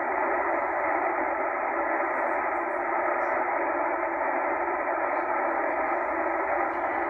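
Tecsun H-501X shortwave receiver in upper sideband mode being tuned slowly upward, giving steady static hiss with no clear station coming through. The hiss has the thin, muffled sound of a narrow sideband filter.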